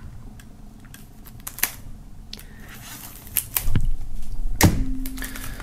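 A knife being worked into the shrink-wrap film on a plastic CD jewel case. Scattered clicks and taps of blade and hard plastic, joined by a soft rustle of the film from about halfway; the loudest click comes near the end.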